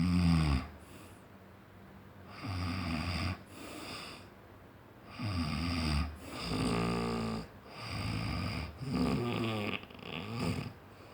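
Heavy snoring: about six snores one to two seconds apart, each with a sliding pitch. The one just past the middle is the longest, with a steady buzz.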